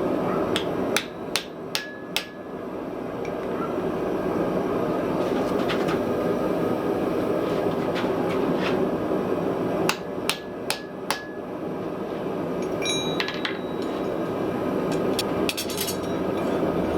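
Hand hammer blows on iron, struck in quick runs: five sharp strikes early on, four more about ten seconds in, and a few lighter taps near the end. A steady noisy rumble continues underneath throughout.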